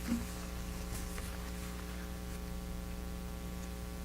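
Steady electrical mains hum, a low, even buzz that holds without change.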